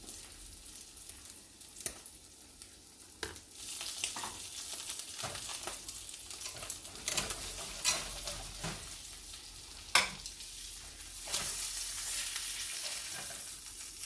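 Tacos frying in a pan, a steady sizzle that grows louder twice. Several sharp clicks of a utensil against the pan, the loudest about ten seconds in.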